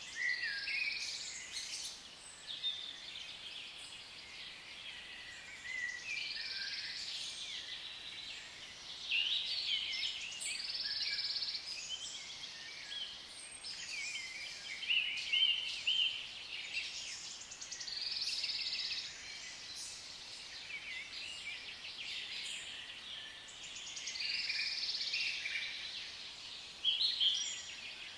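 Rainforest ambience: many birds chirping and calling in overlapping phrases that swell every few seconds, with quick rising and falling whistles, over a faint steady hiss.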